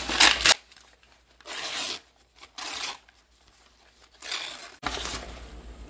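Brown kraft-paper bag crinkling and rustling in several short bursts as it is handled, with quiet gaps between them.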